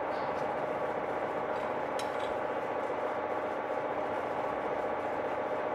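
Steady machine hum with a fine, fast flutter and a light click about two seconds in.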